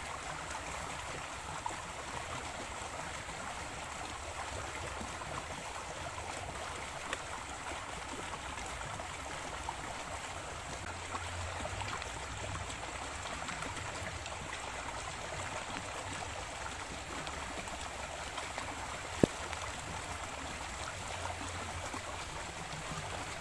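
Small river flowing steadily, a continuous rushing of water. One sharp click about three quarters of the way through.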